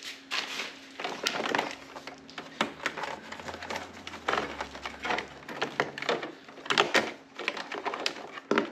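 Hands routing and pressing a wiring harness cable along a plastic car grille: irregular rustling, scraping and small plastic clicks and taps.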